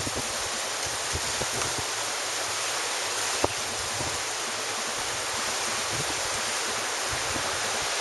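Ocean surf washing ashore as a steady, even hiss, with wind buffeting the microphone in short low rumbles and a small knock about three and a half seconds in.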